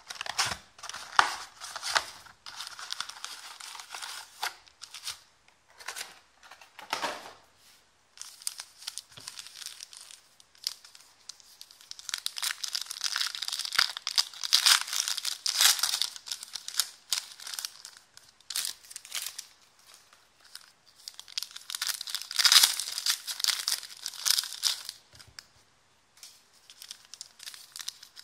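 A 2016-17 Panini Select basketball card box and its foil packs being opened by hand: cardboard handling, then foil wrappers torn and crinkled in irregular bursts, with quieter pauses of handling in between.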